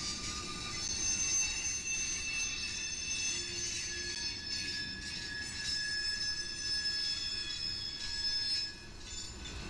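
Freight train of tank cars rolling past, its steel wheels squealing on the rail in several steady high tones over the low rumble of the wheels and cars.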